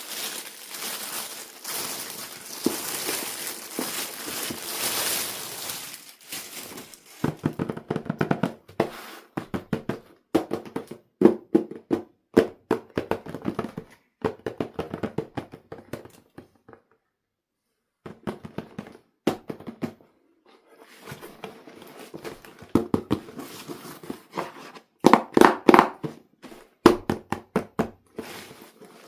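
Plastic toy packaging crinkling and rustling, then many sharp clicks and knocks from handling plastic pieces, with a short pause about midway.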